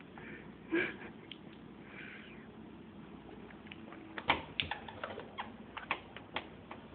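A baby's short squeak about a second in, then a run of soft clicks and smacks.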